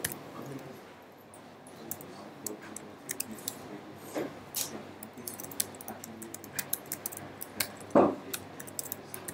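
Typing on a computer keyboard: quick, irregular key clicks, with a louder knock about eight seconds in.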